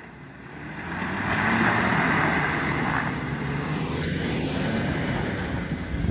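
Suzuki Grand Vitara 4x4's engine running as it drives through mud and water, steady throughout, with a loud rushing noise from about one to three seconds in.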